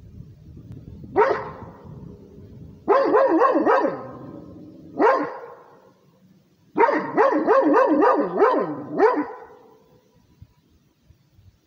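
Rhodesian ridgeback barking territorially: a single bark, a quick run of about three, another single bark, then a fast string of about seven barks.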